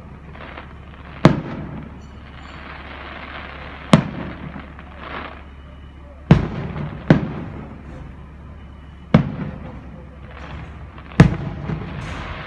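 Aerial firework shells bursting overhead: six sharp bangs spaced about one to three seconds apart, each dying away in a short rumbling echo.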